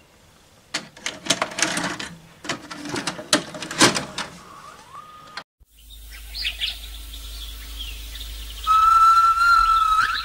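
A VHS cassette pushed into an LG video recorder, with a run of clicks and clunks from the loading mechanism for about five seconds. After a brief drop-out the tape's soundtrack begins: a low hum under bird chirps, then a loud, steady whistled note near the end.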